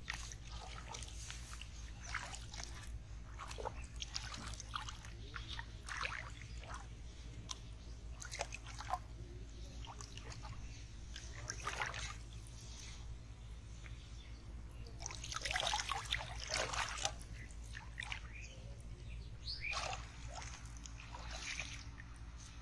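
Shallow muddy water splashing and sloshing as hands scoop and grope through it after fish, in irregular bursts with the busiest flurry about two-thirds of the way through. A steady low hum runs underneath.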